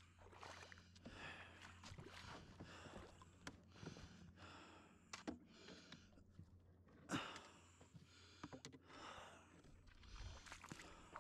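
Faint footsteps and rustling on a forest floor of needles and twigs, irregular and uneven, with breathing close to the microphone.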